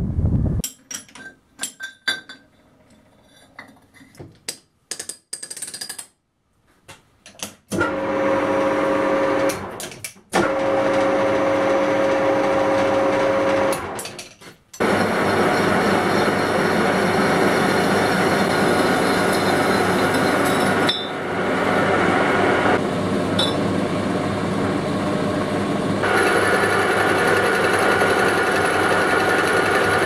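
Metal lathe cutting a steel tube. A few seconds of scattered clicks and knocks come first. The lathe starts about 8 s in with a steady hum, stops briefly twice, then runs on steadily and loudly.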